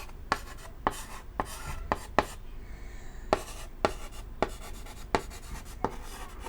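Chalk writing on a chalkboard: sharp taps as the chalk strikes the board, roughly one every half second, with short scratchy strokes between them.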